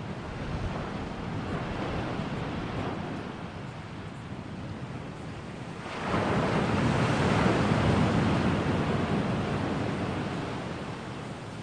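Ocean surf: a steady rush of waves, with a louder wave surging in about halfway through and slowly ebbing away.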